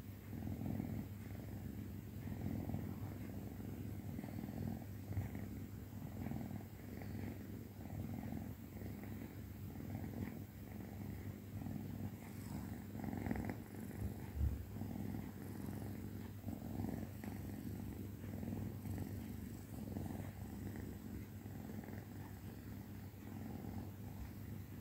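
Kitten purring steadily at close range while dozing, the purr swelling and fading about once a second.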